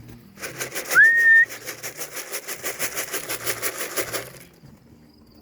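A person gives one short rising whistle to call a homing racing pigeon into the loft. Under it is a rhythmic rattling, about seven or eight strokes a second, lasting about four seconds.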